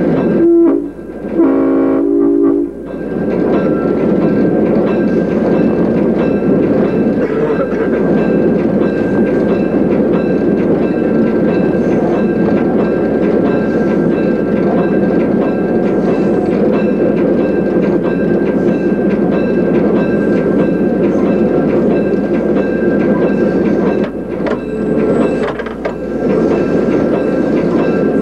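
PRR E8 diesel passenger locomotive sounding its horn, a short toot and then a longer chord blast about a second and a half in, followed by the steady running noise of the moving train on the rails.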